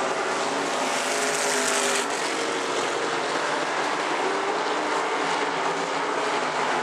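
Pure stock dirt-track race cars running at speed together, their engines blending into one steady sound. A brighter hiss rides over it for about a second and stops suddenly about two seconds in.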